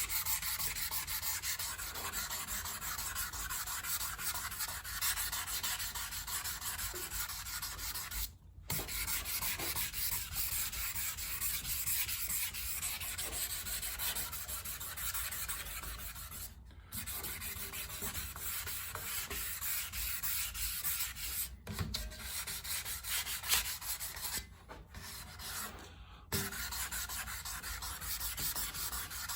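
Wet sanding by hand with 1000-grit sandpaper and water: steady back-and-forth scrubbing with a few brief pauses, smoothing dried filler and putty ready for primer.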